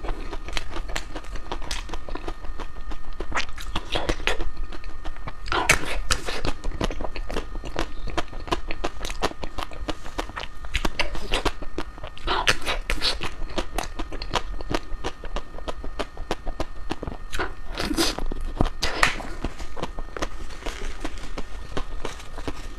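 Crispy ice cream being chewed: steady, dense crackling crunches, with a few louder crunches spread through.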